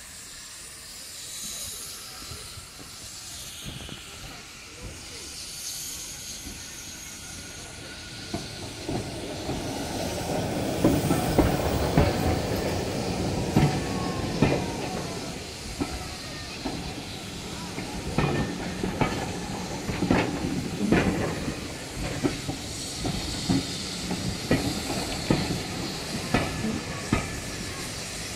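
Steam locomotive coming in with a steady hiss of steam, then a train of passenger coaches rolling slowly past close by, its wheels clicking and clunking irregularly over rail joints and points.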